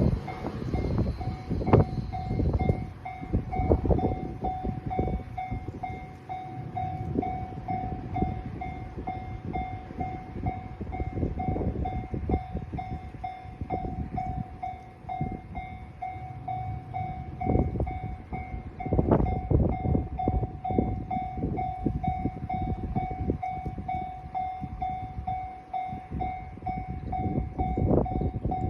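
Japanese level-crossing warning bell ringing in a steady, even kan-kan rhythm while a Sanriku Railway diesel railcar passes over the crossing, its low rumble and wheel clacks on the rail joints coming and going beneath the bell.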